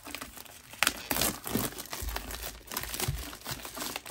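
Clear plastic wrap being torn and peeled off a plastic lunch box, crinkling irregularly and getting louder from about a second in.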